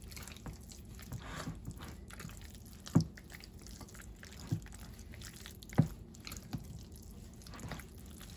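A utensil stirring a thick, sticky mix of shredded chicken and cream cheese in a glass bowl, making soft wet squelching, with four sharp knocks as it strikes the bowl, the loudest about three and six seconds in.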